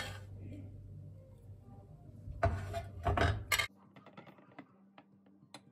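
Metal spoon scraping and clinking against a porcelain plate while spooning and pressing down crumbly flour halva, with two louder scrapes in the middle and a few faint clicks near the end.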